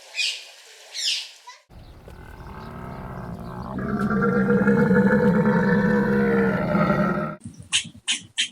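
A large animal's long, deep roar that swells over about five seconds, after two short high squawks at the start. Near the end it gives way to a rapid series of short calls.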